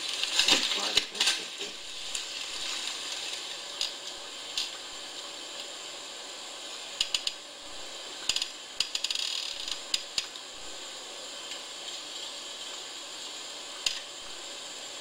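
Handling noise of a shotgun on its rest in a hunting blind: rustling near the start, then scattered light clicks and knocks, over a steady hiss.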